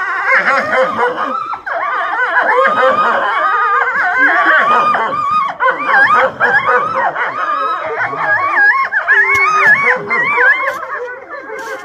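Gray wolves howling in chorus: several voices overlapping, gliding and wavering with quick yipping wobbles in pitch, fading near the end.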